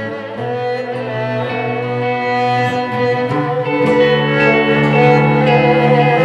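Slow instrumental music on bowed strings: long held notes that shift slowly, with a deeper bass note coming in about four seconds in.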